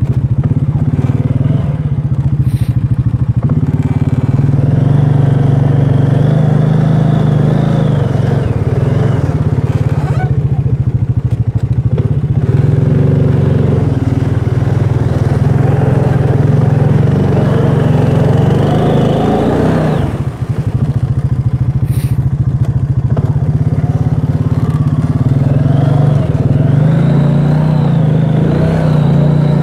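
ATV engine running hard on a rough trail, heard close from the handlebars. Its pitch wavers with the throttle, and it drops off briefly about twenty seconds in before picking up again.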